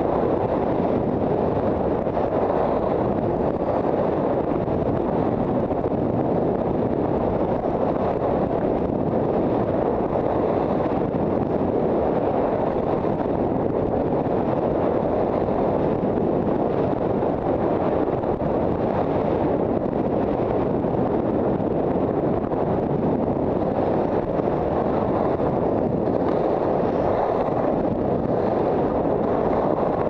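Steady wind rush on a helmet-mounted action camera's microphone while skiing downhill, an even low rushing noise throughout.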